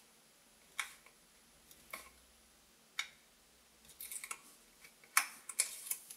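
Fingernails picking at and peeling the white backing paper off double-sided tape stuck on a flattened cardboard tube. It gives a few separate clicks about a second apart, then a quicker run of small crackles and ticks in the last two seconds.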